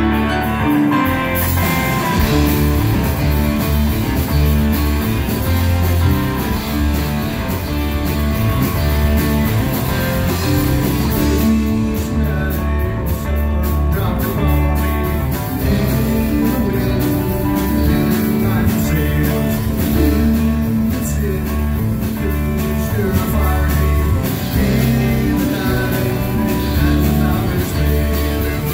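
A rock band playing live: electric guitar, bass guitar and a drum kit, with a man singing lead vocals into a microphone.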